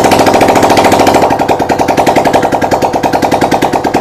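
Suzuki GS motorcycle's single-cylinder four-stroke engine running with no muffler fitted, a loud, rapid, even exhaust beat. The freshly rebuilt engine runs again, its lost compression cured.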